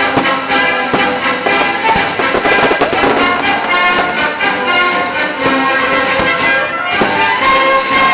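Orchestral music led by brass, with sharp bangs of fireworks going off through it.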